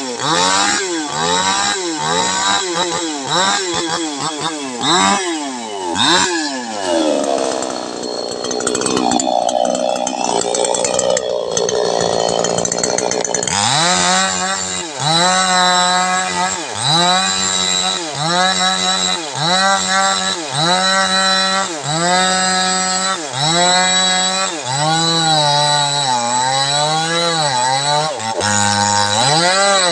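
New West 628 two-stroke chainsaw cutting a jengkol tree trunk, its engine rising and falling about once a second as the throttle is pumped. In the middle stretch the pitch sinks lower and wavers as the chain bogs under load in the cut.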